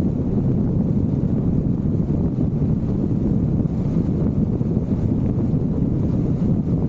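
Wind buffeting the microphone in a steady low rumble while riding a Vespa GTV 300 scooter.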